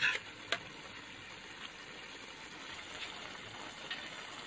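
Shrimp and spring onions simmering in their own juices in a stainless steel pan, a steady hiss of bubbling liquid. A metal spoon clinks against the pan a couple of times near the start.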